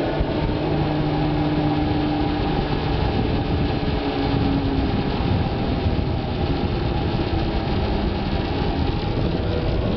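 Cable car's pulley wheels rolling along the steel cable, a steady hum whose pitch falls slowly.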